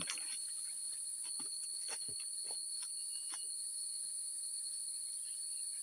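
Steady chorus of insects in the forest: a continuous high-pitched buzz with a thinner steady whine under it, and a few faint ticks scattered through it.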